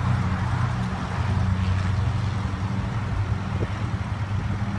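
Machine engine idling steadily, a low even hum.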